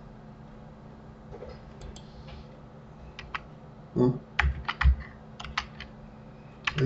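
Computer keyboard keys pressed one at a time: scattered single clicks, a few early and a cluster of several in the second half, two of them with a dull thump.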